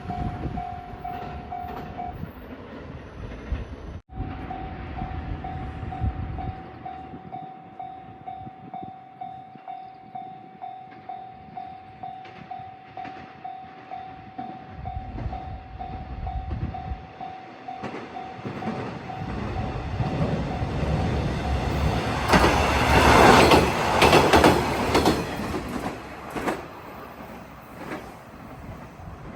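Level-crossing warning bell ringing in a steady repeating pattern while a train approaches and passes. The train's rumble and wheel clatter build up and are loudest about three-quarters of the way through, then die away.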